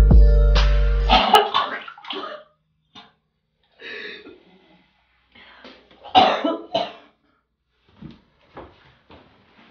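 Background music stops about a second in. Then a person coughs in short, irregular bursts with pauses, the loudest about six seconds in.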